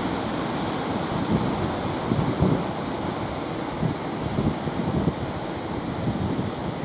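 Surf washing steadily, with wind buffeting the microphone in irregular low gusts.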